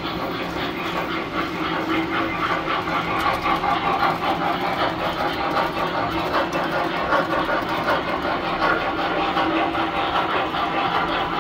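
Tinplate model trains running on the layout's track: a steady, continuous clatter of metal wheels and motors with a low hum underneath.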